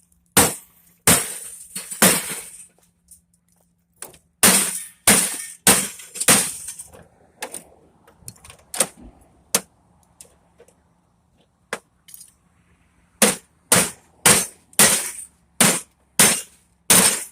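Hammer strikes on CRT picture-tube glass to break it away from the copper deflection yoke, the glass cracking and breaking. Sharp blows come in runs of three to seven, about two a second, with a quieter lull in the middle.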